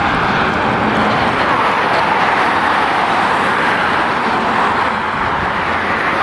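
Road traffic passing close by: steady tyre and engine noise from cars and trucks.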